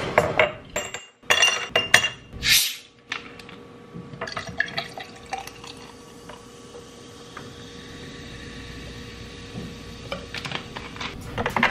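Ice cubes clinking into a glass mason jar over the first few seconds. Then sparkling water is poured from a plastic bottle over the ice in a steady stream, fizzing as the jar fills.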